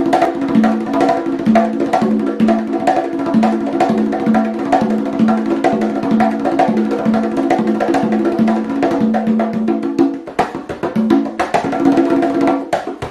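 Conga drums played by hand in a steady repeating pattern: ringing tones at two or three different pitches, with sharp hits between. The lowest tone drops out about ten seconds in as the pattern changes.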